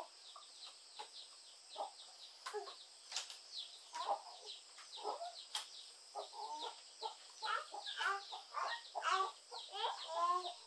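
Chickens clucking on and off in short, separate calls.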